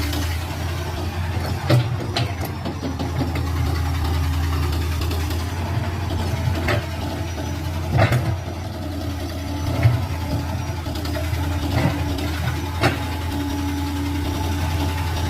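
Komatsu PC200 hydraulic excavator's diesel engine running steadily while it digs into earth, with about half a dozen sharp knocks and clanks spread through it.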